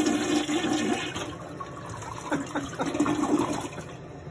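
Toilet flushing: a loud rush of water swirling down the bowl that fades after about a second.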